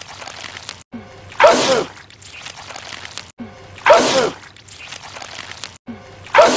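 A man sneezing loudly three times, about two and a half seconds apart. Each sneeze is a sudden burst with a voiced cry that falls in pitch.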